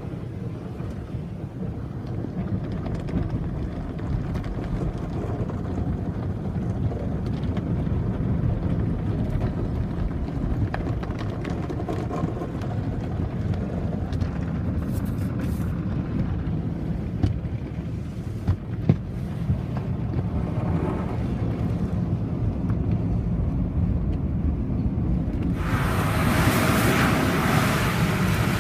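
Automatic car wash heard from inside the car's cabin: a steady low rumble of water and wash brushes working over the body, with a few sharp knocks. About 26 seconds in, a louder hissing rush of spray starts.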